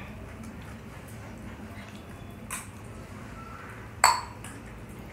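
Dishes knocking during a meal: a light clink about two and a half seconds in, then a sharper, louder clink with a short ring about four seconds in.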